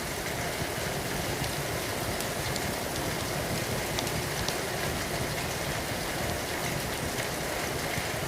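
Steady rain falling, with a few scattered sharp crackles from a wood fire in a fireplace.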